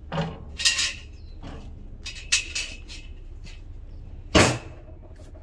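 Cast iron cooking grates being lifted out of a charcoal grill and set down, with a run of metal clanks and knocks. The loudest clank comes about four seconds in.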